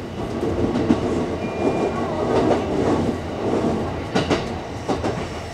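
Electric commuter train running along the track, a steady rumble broken by a few sharp knocks as the wheels cross rail joints, heard from inside the train.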